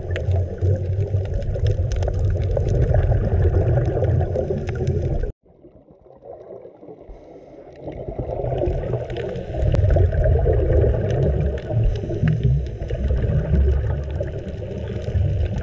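Muffled underwater rumble and bubbling of scuba divers' exhaled air, picked up by a camera during a dive. It cuts out suddenly about five seconds in and builds back over the next few seconds.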